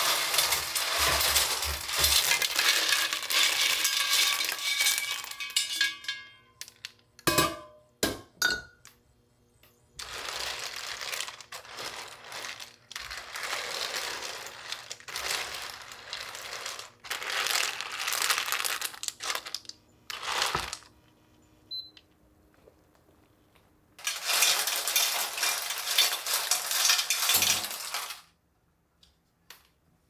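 Hard kitchen items clinking and rattling against each other during kitchen work, in three long stretches with a few separate sharp knocks between them.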